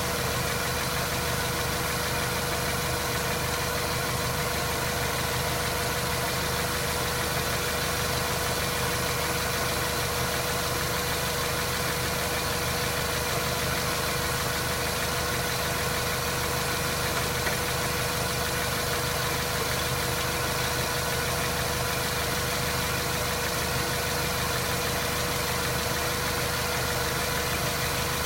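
Mazda 3 running steadily, its automatic transmission giving the knocking noise that comes on when coasting and goes away under throttle: the sign of a fault inside the automatic gearbox.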